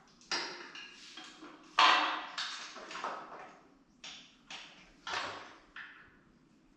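Irregular clicks, knocks and clatters of motorcycle parts and tools being handled during assembly, about eight separate hits, the loudest about two seconds in.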